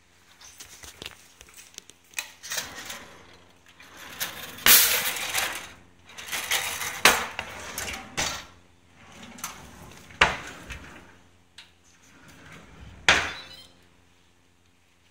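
Kitchen drawers and cupboards being pulled open and pushed shut, with sliding scrapes, clinking and rattling, and four loud knocks spread through the stretch.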